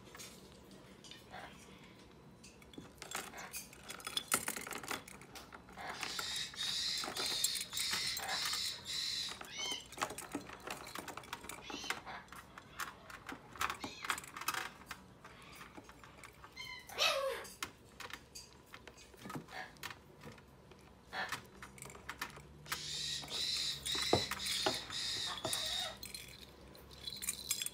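Yellow-crowned Amazon parrot chicks being hand-fed from a syringe, giving fast rhythmic begging calls in two stretches while they take the formula. Scattered light clicks run throughout, and there is one short falling squawk about halfway through.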